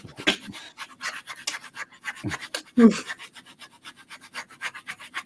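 Pen strokes scratching quickly across paper as someone draws, a rapid run of short strokes. About halfway through there is a brief voiced sound, the loudest moment.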